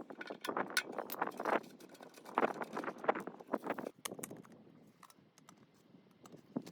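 Small metal parts and tools clinking and clattering as they are handled, in irregular clusters of sharp clicks and knocks that ease off after about four seconds, with one more click near the end.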